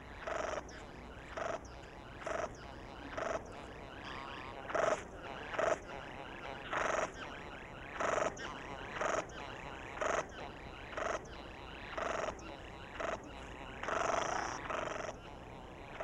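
Male satin bowerbird's courtship display song: a series of short calls repeated about once a second, given as he dances at his bower for a female.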